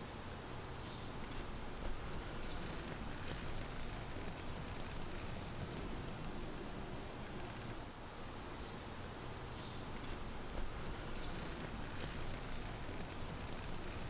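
Steady high-pitched drone of an insect chorus, with short high chirps repeating every second or two.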